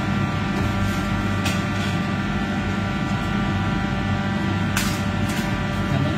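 Commercial kitchen ventilation running: a steady drone of extractor and air-handling fans with a low hum and several faint steady whines. A few light clicks about a second and a half in and near the end.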